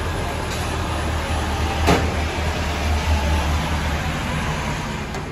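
A steady low rumble under a general clatter and noise, with one sharp knock about two seconds in. The rumble fades about four seconds in.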